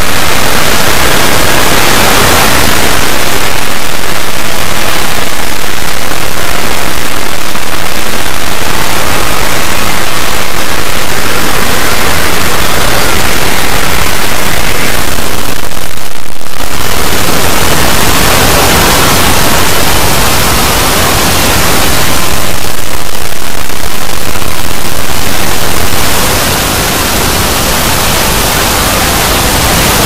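Dozens of video soundtracks layered on top of one another and sped up, blended into a loud, distorted wall of hiss-like noise with no distinct voice or tune. It thins briefly about halfway through and drops a little in loudness near the end.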